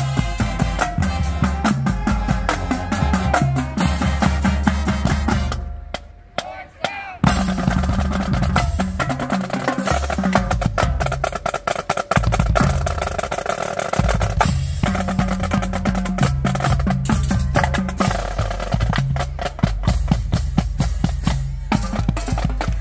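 Marching drumline playing a drum feature: snare drums with rolls, tenor drums and bass drums in a dense, driving rhythm. The playing drops away briefly about six seconds in, then picks up again.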